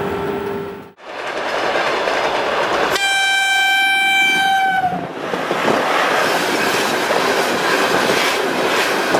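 2ES10 'Granit' electric freight locomotive passing with a long train of open wagons. About three seconds in it gives one horn blast lasting nearly two seconds, its pitch sagging at the very end, over the rumble and clickety-clack of the wagon wheels on the rails. It opens with a second of steady hum inside the locomotive cab.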